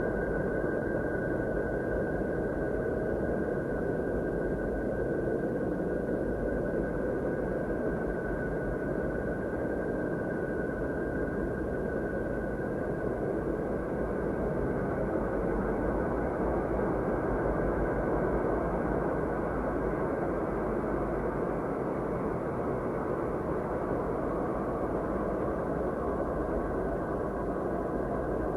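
Steady, unchanging noise drone, most of its weight low and in the middle, with a thin steady tone sounding above it: an ambient 'sound of Saturn' space track.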